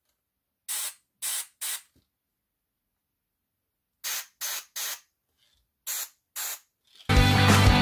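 Gravity-feed airbrush spraying paint in short spurts: about eight brief hisses in three groups as the trigger is pressed and let go, with silence between. Music starts loudly near the end.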